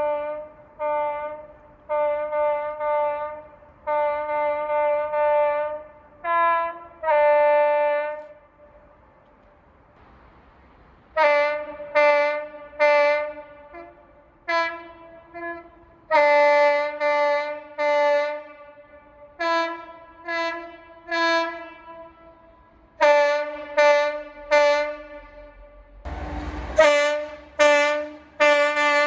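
Train air horns sounding a long series of blasts, from short toots to longer held notes, each a chord of several tones, with the pitch of the chord changing from one group of blasts to the next. There is a pause of a few seconds about a third of the way through, and near the end a brief loud rush of noise comes under the horn.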